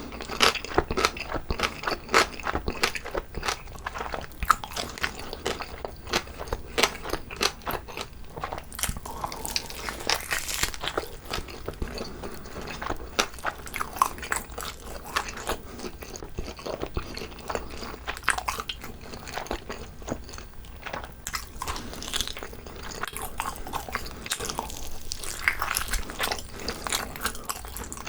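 Close-miked biting and chewing of braised pig's trotter (jokbal), with dense, irregular sticky mouth clicks and crackles.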